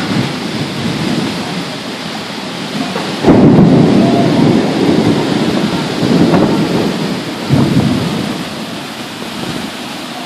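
Tropical storm: a steady hiss of heavy, wind-driven rain, broken by loud low rumbling surges about three seconds in, around six seconds and near eight seconds.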